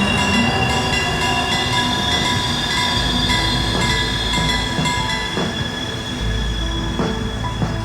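Freight train wagons rolling slowly with their wheels squealing on the rails in steady high tones. Beneath it, a diesel locomotive's deep rumble swells about three seconds in and again near the end.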